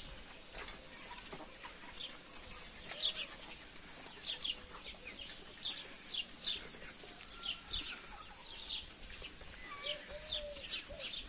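Small birds chirping: a steady scatter of short, high, downward-sliding chirps, often two or three close together. Faint hens clucking now and then in the background.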